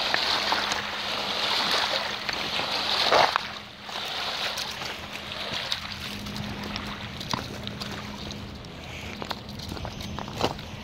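Small river waves washing and splashing against a rocky shale shoreline, louder for the first few seconds and then softer, over a faint steady hum.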